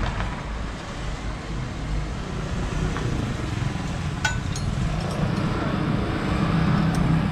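Steady low rumble of a motor-vehicle engine, a little louder near the end. A few light metallic clicks of wrenches on the valve rocker-arm adjusting nuts can be heard over it.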